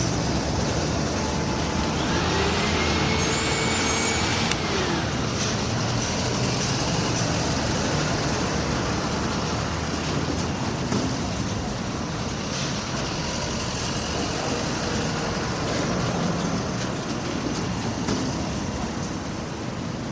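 Busy construction site with street traffic: a steady rumble of trucks and heavy machinery, with scattered knocks. A motor whine rises and holds for a couple of seconds, about two seconds in, then falls away.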